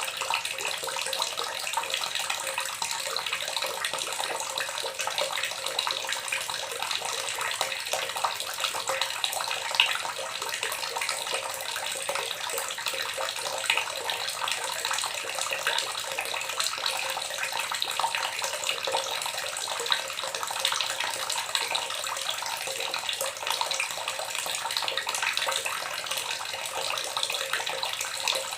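Water gurgling steadily, with a few brief louder splashes.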